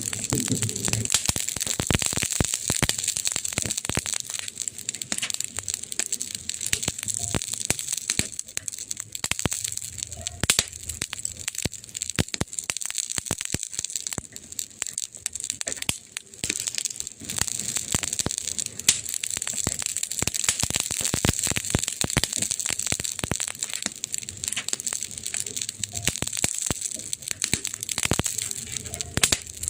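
Wood fire crackling: a dense, irregular run of small pops and snaps over a steady hiss.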